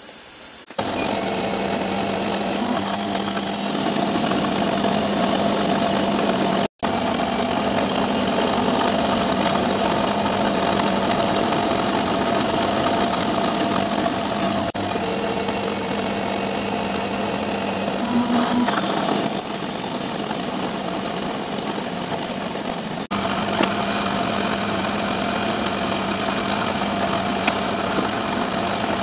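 Small CNC milling machine running steadily as its spindle drives a small end mill through an aluminium plate. About twenty seconds in, a high whine joins for a few seconds. The sound breaks off for an instant about seven seconds in.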